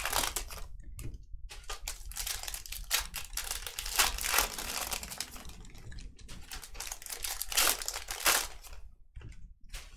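Foil trading-card pack wrappers being torn open and crinkled by hand, in irregular bursts of crackling with a few louder tears.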